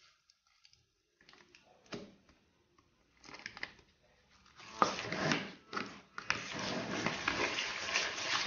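Ricotta being added to a bowl of egg yolks beaten with sugar: a few soft knocks and scrapes, then from about five seconds in the rough, steady scraping of stirring in the bowl as the ricotta is mixed into the cream, with a short break near six seconds.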